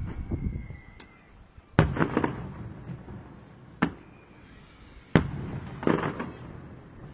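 Aerial firework shells bursting: three sharp bangs about two seconds apart, the first and last the loudest, each trailing off in a rumble, with crackling after the loud ones. A faint whistle comes before the first bang.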